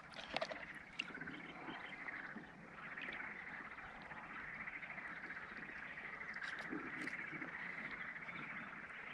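A faint, steady chorus of calling animals, a continuous high-pitched wavering drone, with a few light clicks and knocks in the first second.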